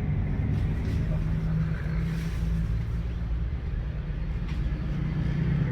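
Steady low hum of an engine running.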